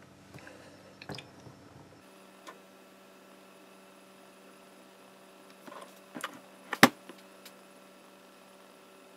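Low steady electrical hum with a few small clicks and taps. A sharp click about seven seconds in is the loudest, followed by two fainter ones.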